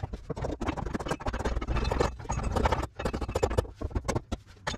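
Rapid, irregular metal scraping and clattering from tool work on the steel bracket at the rear leaf-spring mount under the van.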